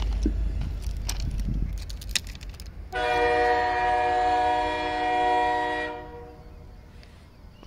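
A train horn sounds one steady blast of about three seconds at an unchanging pitch, starting about three seconds in. Before it there is a low rumble with a few sharp clicks.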